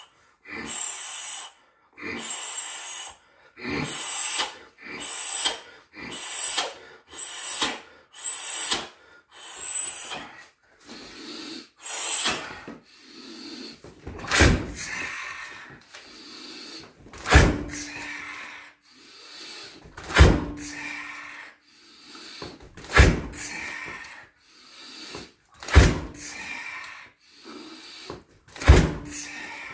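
A man's sharp, forceful exhalations in quick succession, about one a second, during Muay Thai kicking drills. About halfway through, heavy thuds begin, about every three seconds, several with a short low ring after them, with hard breaths in between.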